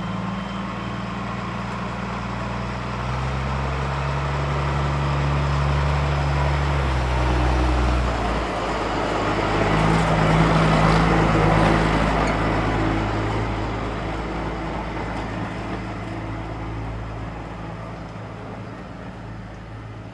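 Narrow-gauge diesel shunting locomotive running past close by, its engine note changing about eight seconds in. The wheel and engine noise is loudest around the middle, then fades steadily as it moves away.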